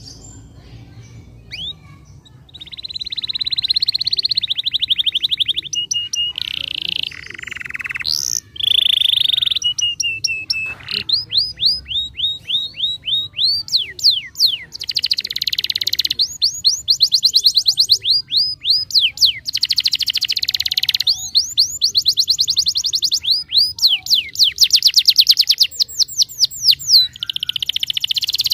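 Domestic canary singing, beginning about two and a half seconds in: a long, fast song of rolling trills and quick rising and falling notes.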